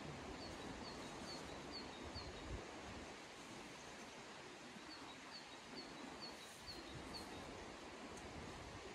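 Faint, steady rush of a river, with a small bird singing a run of high, evenly spaced chirps twice, each run about two seconds long.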